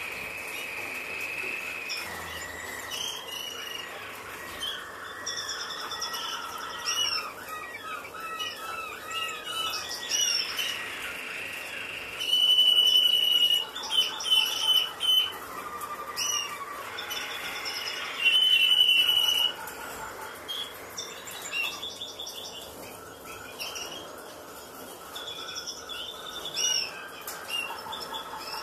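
Caged European goldfinches chirping and calling at the nest, a busy mix of short chirps, repeated arched notes and trills. Two louder stretches of calling come about twelve and eighteen seconds in.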